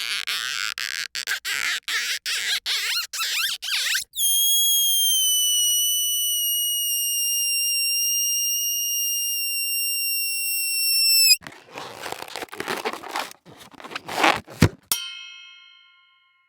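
A run of cartoon sound effects, one after another. First comes a quick series of scratchy strokes, about three a second. Then a high whistle holds for about seven seconds, sagging slightly in pitch and cutting off sharply, and a rattling clatter ends in a bright ding that rings out.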